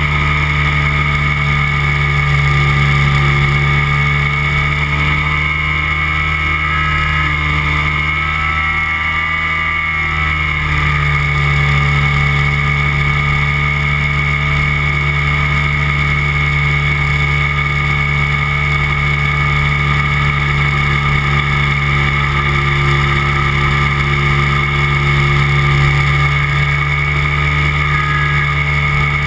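Engine and propeller of a weight-shift microlight trike running steadily in flight. The pitch dips briefly about a third of the way through and then comes back up.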